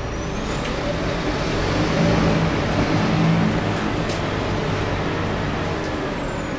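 Scania K280UB city bus heard from inside the cabin, its engine pulling under load and growing louder for the first few seconds before easing off. A high whine rises in pitch over the first two seconds, then slowly falls; a single sharp click comes about four seconds in.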